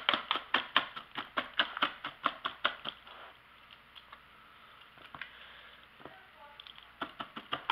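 Wire whisk mashing cooked potato in a bowl, its wires clicking against the bowl at about five strokes a second, breaking the potato into a paste. The strokes stop about three seconds in and start again near the end.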